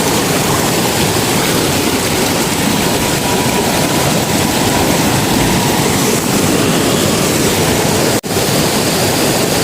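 Mountain stream rushing over rocks, a loud, steady noise that cuts out for an instant about eight seconds in.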